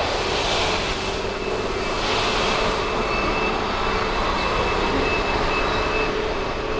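Yamaha YBR125's single-cylinder engine idling, a steady rumble with a hiss over it.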